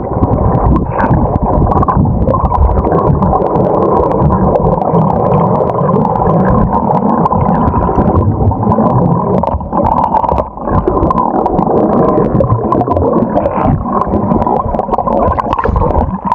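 Underwater sound of a swimmer in a pool, picked up by a submerged camera: a loud, muffled rumbling and bubbling as he swims and breathes out streams of bubbles, scattered with many small clicks. Near the end the camera comes back above the surface.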